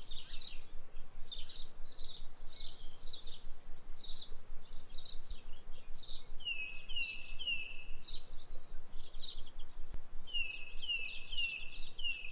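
Birds chirping in a quick, continuous run of short high calls, joined twice by a series of lower calls that slide down in pitch, one after another, about six seconds in and again near the end.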